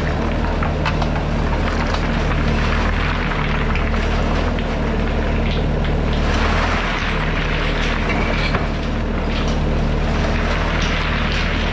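Bobcat skid-steer loader's diesel engine running at a steady speed while its forks tip a wire basket of river stone, the stones clattering out onto the ground in surges, heaviest a little past the middle and again near the end.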